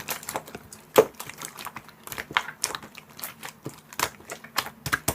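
Slime being squished and pressed by hand, giving irregular wet clicks and pops, several a second.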